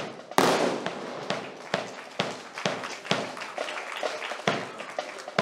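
Sharp, irregular clacks and knocks of drill rifles being handled as the cadets rise from kneeling: hands slapping the rifles and rifle butts striking the ground, with one loud crack about half a second in.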